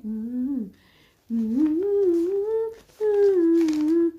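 A woman humming a wordless tune in three phrases of long held notes that slide up and down.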